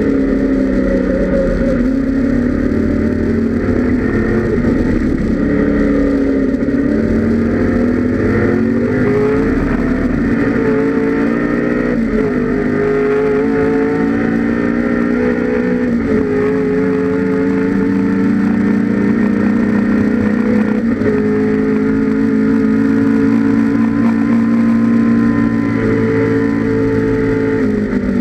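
Ford Mustang GT 5.0 Group A race car's 5.0-litre carburetted V8 running hard on track, loud and unbroken. Its note climbs under acceleration and drops back at gear changes and braking several times.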